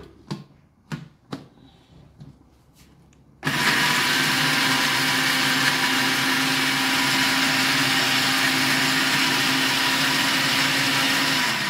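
Countertop blender puréeing soaked dates with a little water into a paste: a few light knocks, then the motor starts suddenly about three seconds in and runs steadily at full speed, its hum dropping in pitch right at the end as it is switched off.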